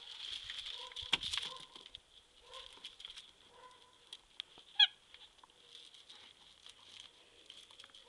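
A squeaky toy gives one short, high squeak about five seconds in.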